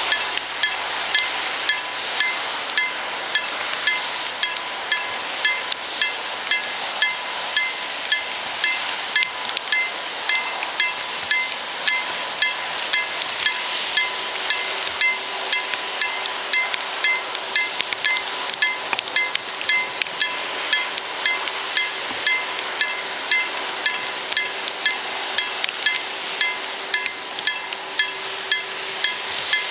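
KLD-40 electric level-crossing bell ringing with even, sharp metallic strikes, about one and a half a second: the crossing's warning is active for an approaching train.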